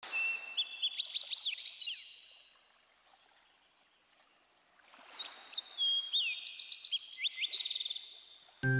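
A songbird singing two phrases of quick whistles and chirps, the second ending in a fast trill, with a few seconds of near quiet between them. Music with mallet-like notes starts suddenly at the very end.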